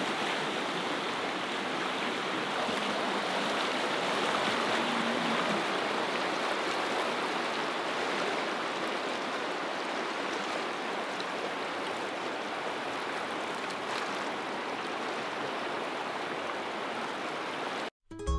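Steady rushing of the fast-flowing Klutina River running past a gravel bank. It cuts off just before the end, where acoustic guitar music begins.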